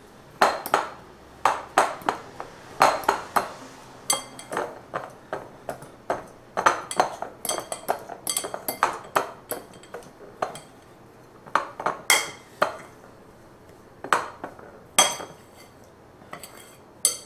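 A utensil scraping and clinking against a glass mixing bowl while stirring a thick chocolate crust mixture by hand. The strikes come in irregular clusters of several a second, some with a short glassy ring.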